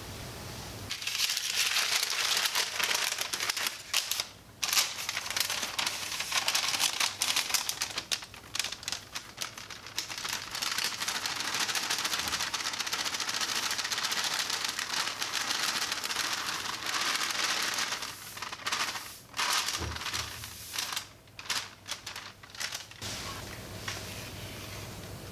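Cocoa powder and flour being sifted through a fine metal mesh sieve and poured into a glass mixing bowl: a steady, dry rasping hiss full of quick light taps, broken by a few short pauses. It stops abruptly near the end.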